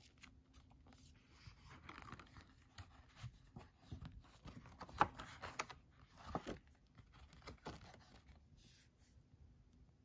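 A large paper page in a metal ring binder being turned over by hand: stiff paper rustling and sliding, with a few light clicks, loudest about five seconds in.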